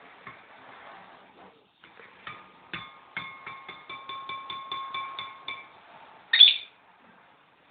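A pet bird calling in a fast run of repeated, ringing notes, about four a second, then a single short, loud rising squawk near the end.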